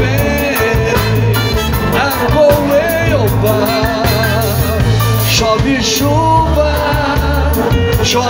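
Live band playing an upbeat samba-rock groove: electric bass and drum kit underneath, keyboard and horns, with a wavering melody line on top.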